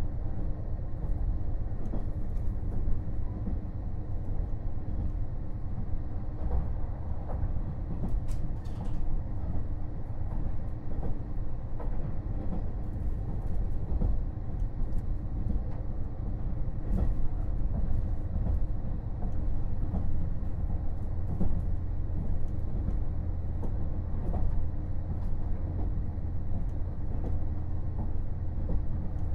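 Running sound of a KiHa 48 500-series diesel railcar at speed: a steady diesel engine drone over the low rumble of wheels on rail, with frequent light clicks and knocks from the running gear.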